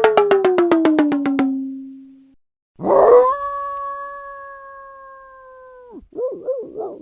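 A string of short sound effects. First a quick run of clicks over a falling tone. Then a long, steady, howl-like tone that drops off suddenly, followed by a few short wavering yelp-like calls.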